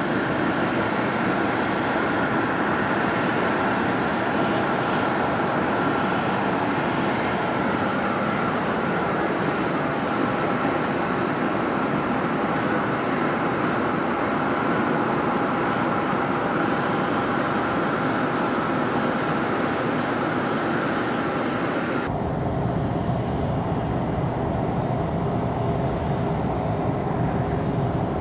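Aircraft de-icing truck spraying de-icing fluid onto an Airbus A319: a steady rushing hiss of the spray over a constant machine drone with a steady whine. About two-thirds of the way through, the sound changes abruptly and becomes duller.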